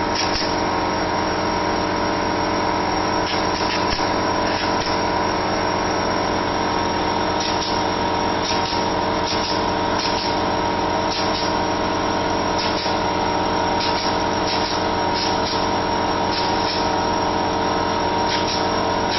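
Small portable air compressor running steadily, with a pneumatic clip gun firing again and again, each shot a short hiss of air, about fifteen to twenty in all, in irregular groups.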